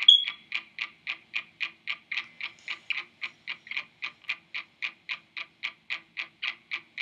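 Rapid, even ticking or clicking, about four ticks a second, with a faint low steady hum beneath.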